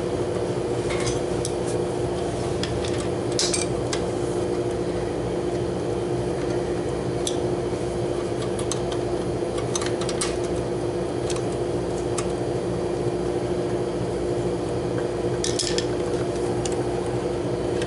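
Scattered light metallic clicks and clinks of hand tools and motor parts being handled while a small condenser fan motor is fitted and wired, over a steady machine hum.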